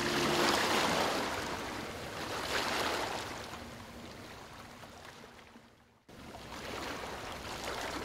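Ocean waves washing in and drawing back, with one surge at the start and another about three seconds in. The sound then fades, drops out almost completely for a moment at about six seconds, and comes straight back.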